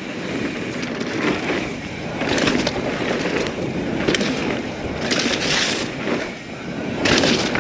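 Norco Sight mountain bike riding fast down a dirt trail strewn with leaves: tyres rolling and hissing over the dirt, wind rushing on the action-camera microphone, and the odd sharp click or rattle from the bike. The hiss swells several times as the bike speeds up or carves through turns.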